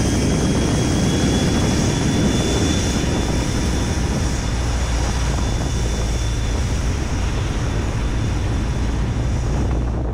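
Diesel locomotives of a Montana Rail Link maintenance-of-way train running past: a steady, loud rumble with a thin high whine above it.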